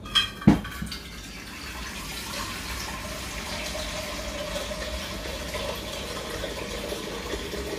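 A sharp knock about half a second in, then a kitchen tap running water steadily into a pot, with a held ringing tone as the pot fills.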